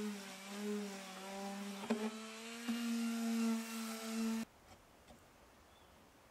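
Electric orbital sander running on rough wood, a steady hum whose pitch wavers and steps up as it is pressed and moved over the chair, with a couple of knocks about two seconds in. It cuts off abruptly a little over four seconds in, leaving a few faint ticks.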